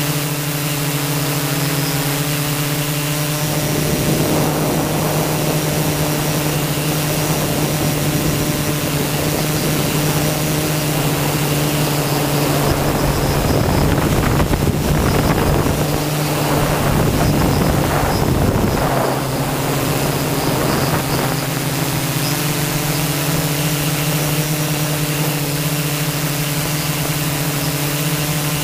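Multirotor drone's propellers humming steadily, heard from on board. Wind rushes over the microphone from about four seconds in, strongest in the middle, then dies away, leaving the steady hum.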